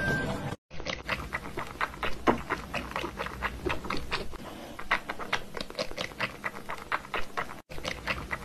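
A cat licking at the spout of a plastic water bottle: a steady run of quick clicking licks, about four a second, with a few short pauses.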